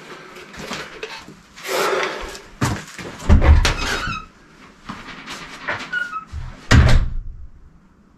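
Irregular knocks, scrapes and thumps from someone handling things and moving about, with a few short squeaks. The heaviest thumps come about three seconds in and again near seven seconds.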